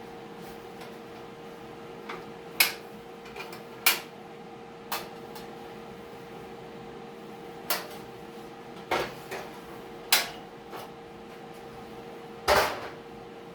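Sharp knocks on sheet metal, about seven, irregularly spaced; the last, near the end, is the loudest and rings on briefly. A steady hum runs underneath.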